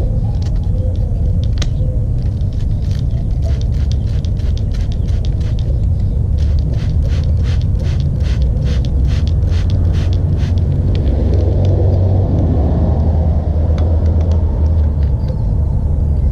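A steady low rumble, with an even run of short scraping or rubbing strokes, about two to three a second, through the middle.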